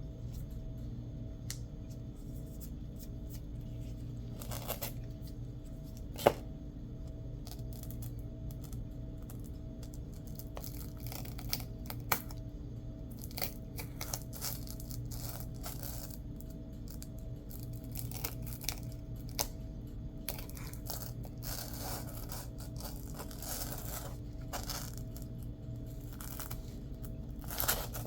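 Hands working the patch materials: intermittent scraping and tearing noises and small clicks, with one sharp click about six seconds in and a denser stretch of scratchy noise in the second half, over a steady low hum.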